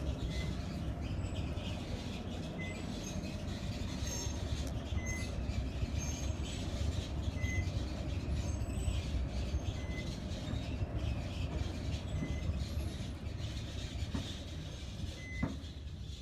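Otis inclined elevator car travelling along its sloped rail track: a steady low rumble from the ride, with a short high beep every few seconds. The rumble fades near the end.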